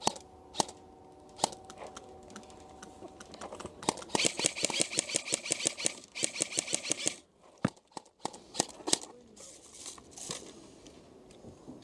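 Rapid mechanical clicking from an airsoft rifle and its magazine: two runs of about ten clicks a second, the first about two seconds long and the second about one, with scattered single clicks before and after.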